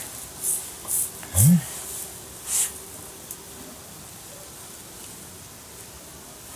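A few short rustling, scraping noises in the first three seconds, from weeds and soil being pulled and handled by hand, with a brief hum of a man's voice about a second and a half in. Only faint background after that.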